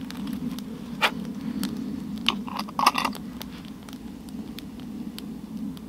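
Small wood fire in a camp stove crackling with scattered sharp pops, over a steady low rumble. A cluster of louder knocks and clinks comes between two and three seconds in, from a metal bottle and cup being handled.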